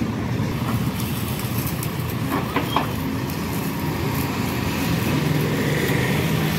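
Caterpillar backhoe loader's diesel engine running steadily at idle, a little louder in the second half, with a few light metallic clinks about two and a half seconds in.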